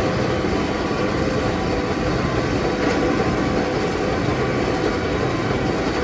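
John Deere tractor and a Claas large square baler running steadily as they travel along a row of wood chip, picking it up to try baling it.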